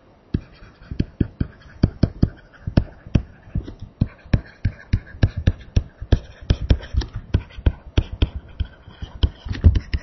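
Pen stylus tapping and scratching on a tablet screen during handwriting: an irregular run of sharp clicks, several a second.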